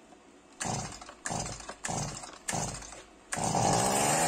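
Stihl MS170 chainsaw's small two-stroke engine being pull-started: four short cranks of the starter cord about two-thirds of a second apart, then it catches near the end and runs with a wavering pitch.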